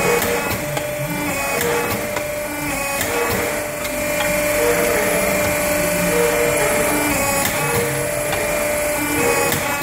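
Hydraulic semi-automatic riveting machine running as it sets rivets through brake lining into a steel brake shoe: a steady hum from the hydraulic unit, with shorter whirring tones that come and go and sharp clicks at irregular intervals, about one every second or two.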